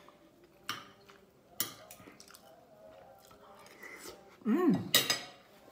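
Eating sounds: a metal spoon and fork clinking against a ceramic plate a few separate times. A short hummed 'mm' rises and falls about four and a half seconds in, followed at once by the loudest clink.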